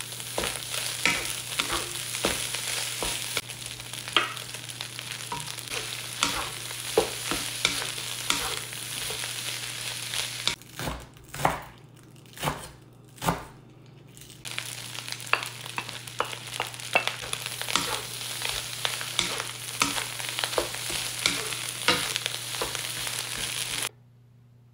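Fried rice sizzling in a nonstick wok as a wooden spatula stirs and scrapes it, with frequent sharp clicks of the spatula on the pan. About halfway through, the sizzling gives way to four chops of a knife through green onions onto a wooden cutting board, then the stir-frying sizzle returns and cuts off suddenly near the end.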